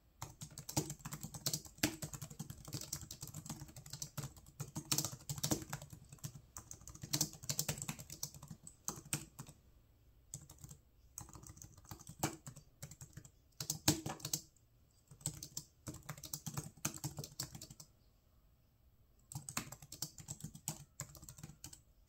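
Typing on a Logitech K580 slim membrane keyboard: rapid, continuous key clicks for about the first nine seconds, then shorter runs of typing broken by brief pauses.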